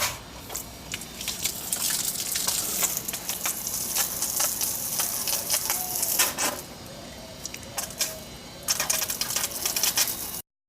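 Water from a pipe spraying hard onto the back of a window air conditioner's mesh filter, washing trapped dust out of it: a steady splashing hiss that eases about six and a half seconds in, picks up again a couple of seconds later, then cuts off abruptly near the end.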